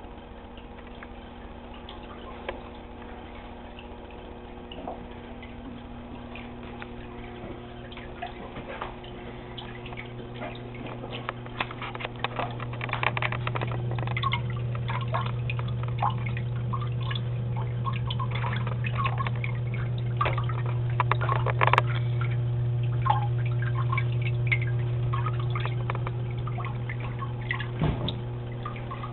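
Aquarium equipment humming steadily, with water dripping and trickling and scattered small clicks and taps. A deeper hum grows louder through the second half.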